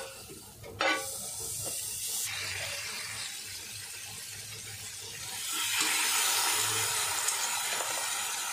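Whole tilapia frying in margarine in a hot cast-iron pan: a steady sizzling hiss that gets louder a little past halfway as a second fish goes in. A short knock about a second in.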